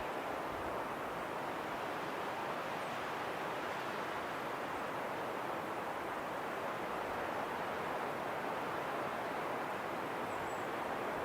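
Steady, even rushing of wind, with no gusts or breaks. A faint short high chirp comes about ten seconds in.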